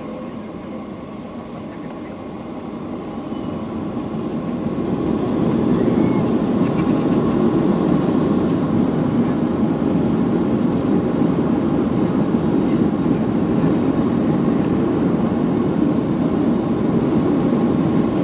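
Boeing 737's CFM56 jet engines heard from inside the cabin, their rumble rising over a few seconds starting about 2 s in and then holding steady and loud as they spool up to high thrust.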